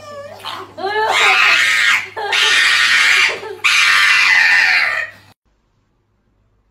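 Loud screaming cries: a few short wavering calls, then three long, loud screams of about a second each, cutting off suddenly a little after five seconds in.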